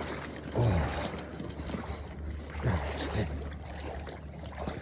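Wind buffeting the microphone with a steady low rumble, over water sloshing as a man wades through cold, shallow lake water; he gives a couple of short gasping exclamations at the cold.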